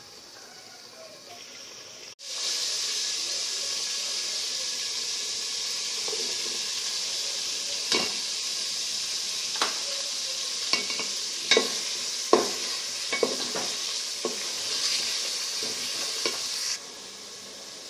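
Food frying in hot oil in a pan: a steady sizzle that starts suddenly about two seconds in and cuts off near the end. From about eight seconds in, a stirring utensil knocks and scrapes against the pan about a dozen times.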